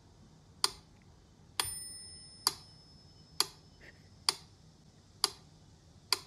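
Mechanical metronome ticking steadily, about one tick every 0.9 seconds, seven ticks in all, with its bell ringing on one accented beat about a second and a half in.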